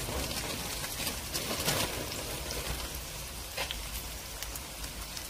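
Mung bean pancake frying in oil in a pan: a steady sizzle with many small crackling pops.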